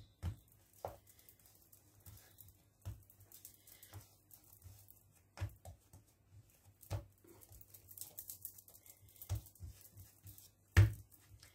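Hands working dough balls on a marble countertop: scattered soft pats and knocks, with one louder thump near the end.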